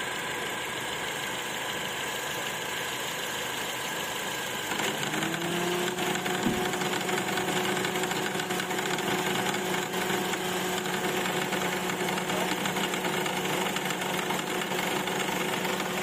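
Honda CR-V 2.4-litre i-VTEC four-cylinder engine idling. About five seconds in the engine gets louder and a steady hum joins, as when the A/C compressor engages. From then on a rapid knocking runs under the engine sound, which the mechanic suspects comes from a worn belt tensioner with too much play.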